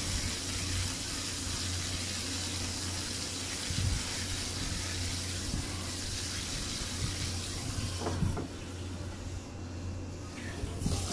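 Tanigue (Spanish mackerel) steaks sizzling steadily as they fry in oil in a nonstick pan. The sizzle turns duller and quieter for a couple of seconds near the end.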